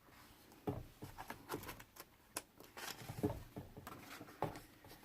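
A picture book being handled close to the microphone with its pages turned: a string of irregular soft knocks and rustles, the loudest about a second in.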